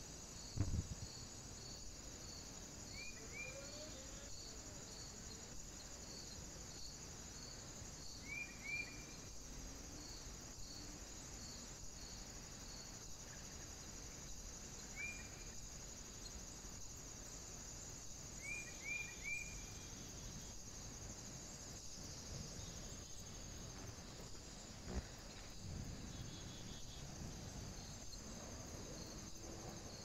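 Woodland ambience from a trail camera at a feeder: a steady high insect chorus with a regular chirp about twice a second, short bird calls a few times, and a couple of low thumps, the loudest about a second in and near the end.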